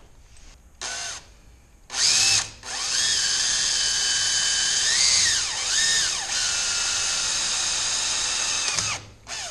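Power drill boring a hole into a portable generator's metal frame rail: two short trigger pulls, then a steady run of about six seconds, with the motor's pitch dropping twice as the bit bites, before it stops near the end.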